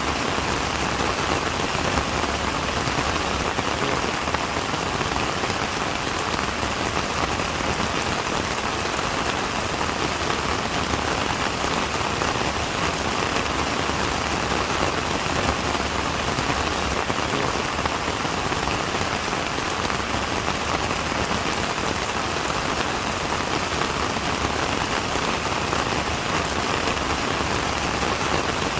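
Steady rain falling, an even hiss of many raindrops hitting a surface, without pause or change.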